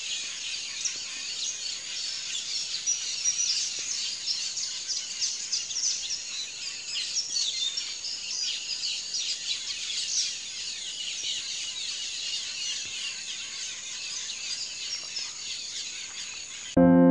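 Tropical forest ambience: a dense, steady chorus of chirping insects and birds, made of many short high-pitched calls over a constant high drone.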